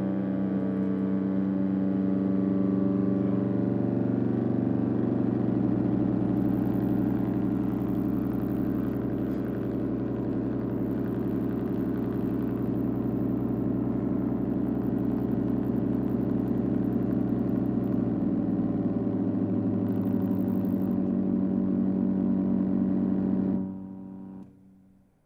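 Dense, steady drone of many held tones from a set of magnetic guitars played through amplifiers, with a deeper low hum joining through the middle. It cuts off near the end, a last tone dying away quickly.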